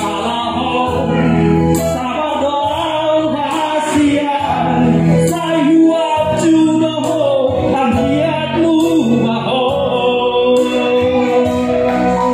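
A man singing a Batak song into a microphone over backing music, the melody held and bent in long sung lines.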